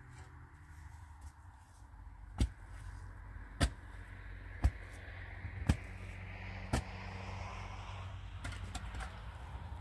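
Five sharp knocks, struck about a second apart, over a steady low hum.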